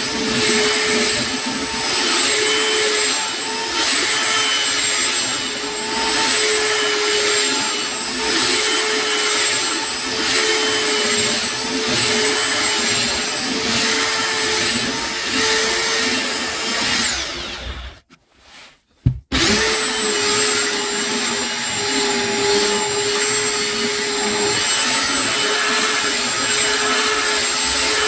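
Electric power sander running steadily with a high whine. About 17 seconds in it is switched off and spins down to silence, then after a click it starts up again about a second and a half later and runs on.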